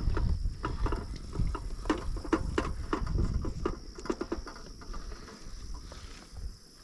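Quick, irregular knocks and rattles as the weighing tripod, its hanging dial scale and the weigh sling are handled, over a low rumble. The knocks thin out over the last second or two.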